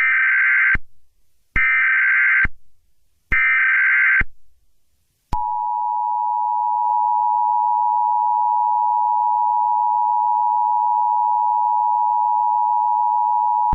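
Emergency Alert System broadcast signal: three short screeching SAME header data bursts about a second apart, then the steady two-tone EAS attention signal held for about eight seconds.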